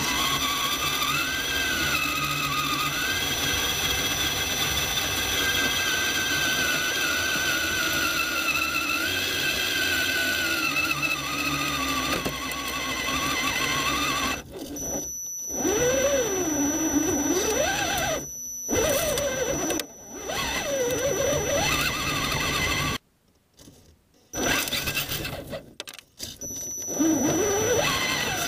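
Whine of an Axial SCX10 Honcho 1/10-scale rock crawler's electric motor and gear drivetrain, heard from a camera on board, rising and falling in pitch with the throttle. In the second half it cuts out several times as the throttle is let off, once for about a second and a half.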